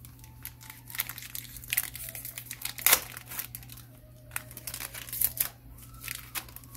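Foil wrapper of a trading-card pack crinkling and tearing as it is opened by hand: a run of irregular crackles, the loudest about three seconds in.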